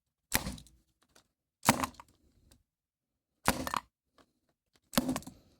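Four short crackling handling noises, about a second and a half apart.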